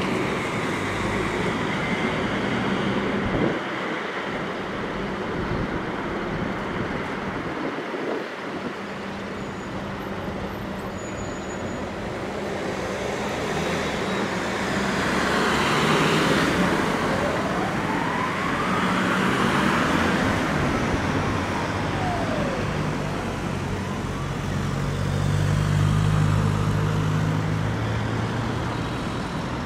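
Steady urban road traffic noise. A siren wails faintly in the distance partway through, and near the end a vehicle engine passes close by.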